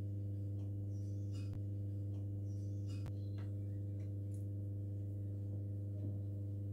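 Steady low electrical hum, one unchanging drone with several evenly spaced overtones, with a few faint soft ticks.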